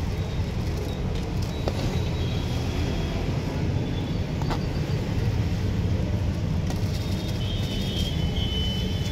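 Steady low background rumble, with a couple of light clicks as a steel plate scoops cooked rice into a foil-lined parcel bag.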